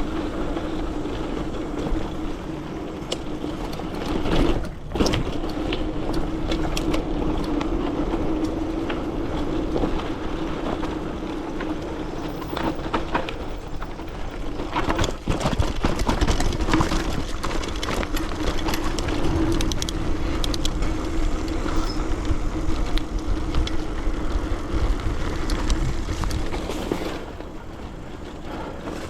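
A bike riding along a trail: steady rolling noise with a constant low hum, and scattered rattles and clicks from the bike on the rough surface. It briefly cuts out about five seconds in and gets quieter near the end.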